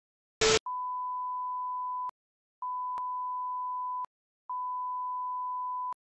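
A short, loud burst of static-like noise, then three long, steady beeps on one pitch, each about a second and a half, with half-second gaps: the attention tone of a mock broadcast emergency alert.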